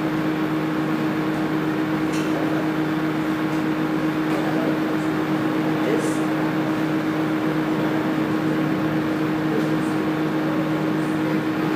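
Steady electrical hum with a low, even murmur of voices underneath.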